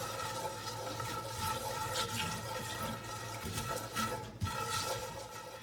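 Half a potato scouring coarse sea salt around a wet cast iron skillet, a steady gritty wet scrubbing, with water running in the sink.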